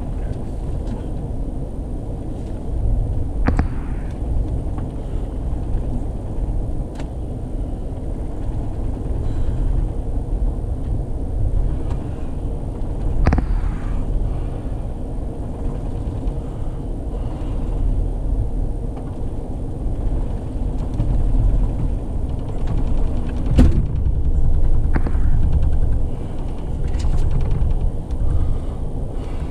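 Steady low rumble of an Amtrak passenger train rolling along, heard from inside the car, with a few short sharp knocks scattered through it.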